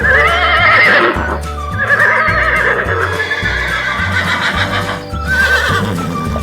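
A horse whinnying three times, shaky wavering calls about a second long, the last one short near the end, over background music with a steady bass beat.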